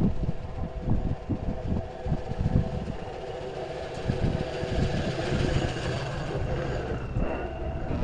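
Hi-rail pickup truck approaching and passing on the rails: its engine runs over a low, uneven rumble, with a steady whine from the wheels on the track. The sound grows louder and brighter about halfway through as the truck comes close.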